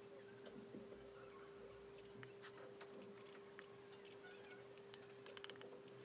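Faint clicks and scrapes of a metal spatula working lipstick on a stainless steel mixing palette, coming thicker in the second half, over a faint steady hum.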